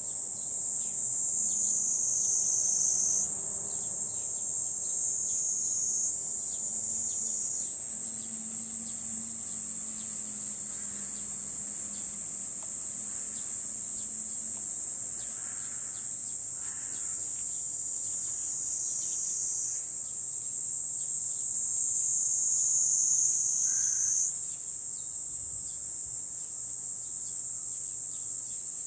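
A steady chorus of summer insects: one continuous high-pitched buzz whose pitch steps up or down a few times as the callers change.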